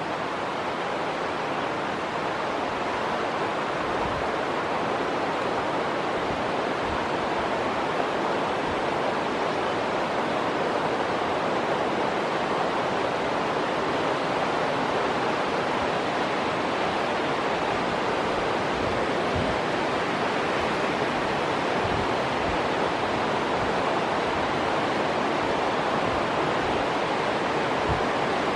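Steady rushing of a fast river, an even wash of water noise, with a few scattered low bumps.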